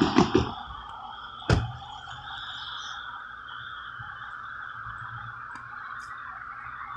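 A car's tyres thumping over the rails of a grade crossing, four quick thumps as it drives across, followed about a second later by one sharp knock; after that only a steady faint background hum.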